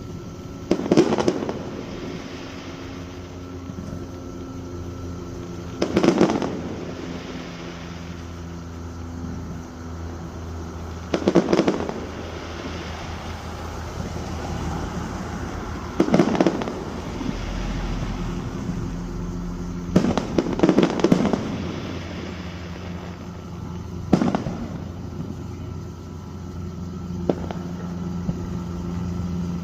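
Aerial fireworks shells bursting, one sharp bang with a brief rumbling tail roughly every four to five seconds, and a quick cluster of two or three bursts a little past the middle.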